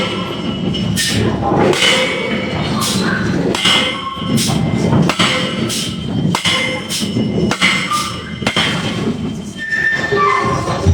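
Heavy hammer blows on a hot iron block while a hole is punched through it, one dull thud roughly every second at an uneven pace, with brief metallic ringing after some strikes.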